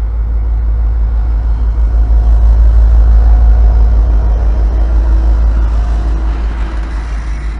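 V/Line N-class diesel locomotive running past with a heavy low rumble that swells to its loudest about three seconds in and then fades.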